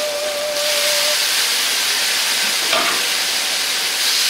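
Seasoning liquids (Shaoxing wine, soy sauce, chicken broth) hitting a very hot carbon-steel wok, sizzling loudly with a hiss of steam that grows brighter about half a second in. A thin steady tone stops about a second in.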